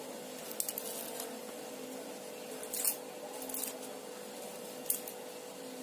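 Garlic cloves being crushed with a knife, several short crackling crunches of the cloves and their papery skins, the loudest about three seconds in, over a faint steady hum.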